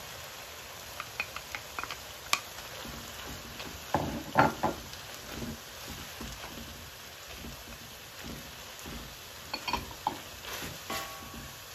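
Chicken stir-fry with bell peppers and onion sizzling steadily in a pan while it is stirred. A spoon clacks and scrapes against the pan in a few short clusters, and something rings briefly near the end.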